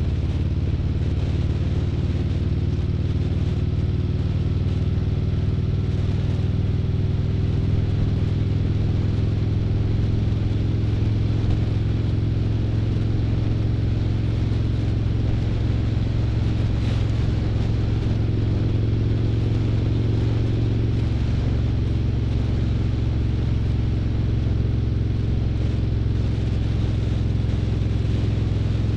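Harley-Davidson Street Glide's V-twin engine running steadily at cruising speed, heard from on the motorcycle. The engine note shifts slightly about six seconds in and again about twenty-one seconds in.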